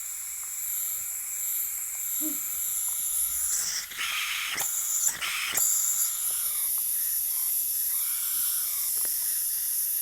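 Compressed air hissing steadily out of a System X NME paintball marker's bolt and breech, with two louder rushes of air about four and five seconds in. It is an air leak past old seals, which the repairer puts down to worn ram O-rings, or at worst the poppet O-rings.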